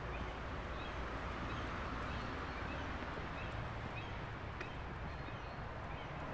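Steady outdoor background noise with a low rumble, over which faint short bird chirps repeat at irregular intervals, with one brief click about four and a half seconds in.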